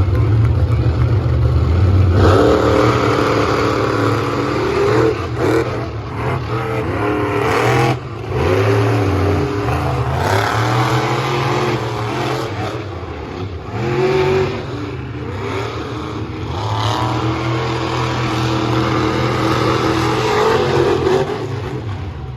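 Monster truck engines racing at full throttle, revving up and falling back again and again, with short lifts about eight and fourteen seconds in, easing off near the end.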